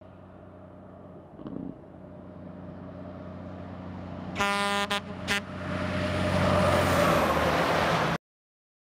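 A heavy vehicle's engine rumble growing steadily louder, with one horn blast about four and a half seconds in and two short toots right after it. A rising rush of passing noise follows and cuts off suddenly near the end.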